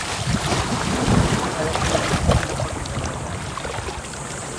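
Wind buffeting the microphone over the sloshing and splashing of people wading waist-deep through seawater. The gusts are heaviest in the first half and ease off after about two seconds.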